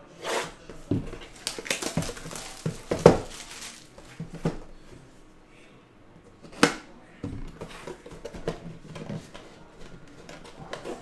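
Utility knife slitting the cellophane shrink-wrap on a cardboard collectible box, the plastic crinkling and tearing in a run of irregular sharp crackles and clicks.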